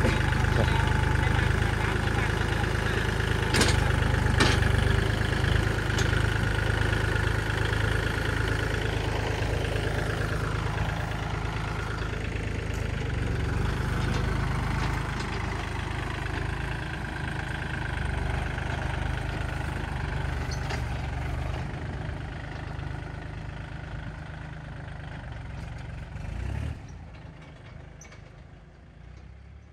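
Kubota L4018 tractor's three-cylinder diesel engine running as the tractor drives off, with two sharp knocks about four seconds in. The engine fades steadily over the last several seconds as the tractor moves away.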